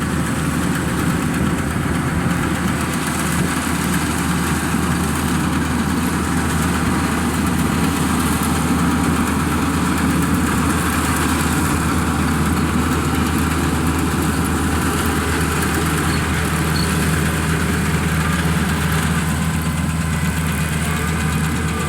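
Kubota AR96 combine harvester's diesel engine running steadily, with the even noise of the machine working.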